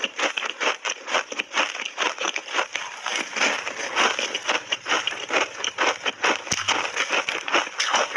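Close-up chewing of hard ice: a layered ice cake crunched between the teeth in quick, regular crunches, about three a second.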